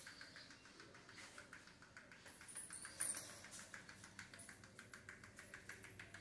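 Faint, quick, light strokes of a broom sweeping the floor, several a second.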